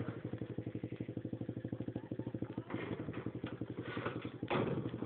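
A 125cc single-cylinder ATV engine running at a steady low idle, with an even, rapid putter of firing pulses. A brief burst of noise comes in about four and a half seconds in.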